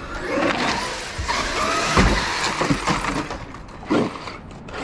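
Traxxas X-Maxx brushless electric RC monster truck driving hard, its motor whine and tyre noise rising from about half a second in. There is a loud thud about two seconds in, typical of the truck landing a jump nose-first, and a second knock near four seconds.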